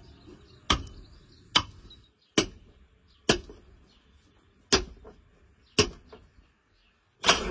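A cleaver chopping into a hanging lamb carcass: seven sharp, evenly paced strikes, about one a second, each a short thwack of blade into meat and bone.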